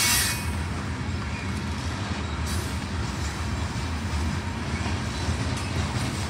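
Freight train of covered hopper cars rolling past, a steady low rumble of wheels on rail. A loud hiss dies away in the first moment.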